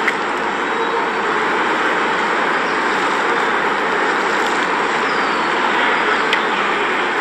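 Steady rushing roar of city traffic, even and unbroken.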